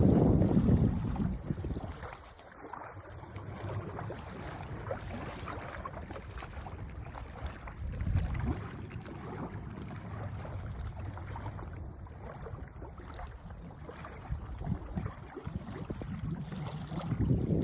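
Small lake waves washing and lapping at the shore, surging louder at the start, about eight seconds in and again near the end.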